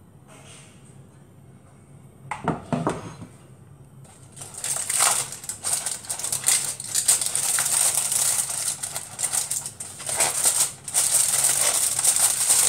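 Crumpled aluminium foil sealing a pot being peeled back by hand, crinkling and crackling. A short rustle comes about two seconds in, then dense, irregular crackling from about four seconds on.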